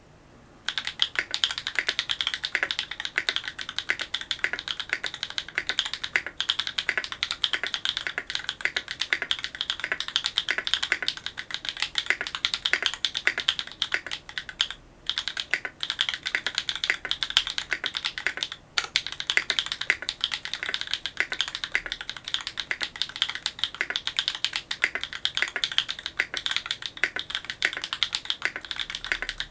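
Fast, continuous typing in English on a Duck Orion V3 custom mechanical keyboard with lubed Holy Panda tactile switches, an FR4 plate and GMK Oblivion keycaps. The typing starts about a second in and stops briefly twice, around the middle.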